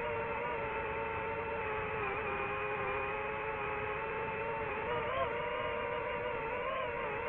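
DJI FPV quadcopter's motors and propellers whining steadily in flight, the pitch wavering slightly as the throttle shifts, with a brief rise about five seconds in.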